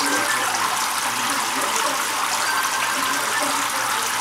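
Steady splashing of a pump-fed home-made rain chamber: water spraying from perforated plastic tubing and falling into a plastic tub of water, an even rain-like patter.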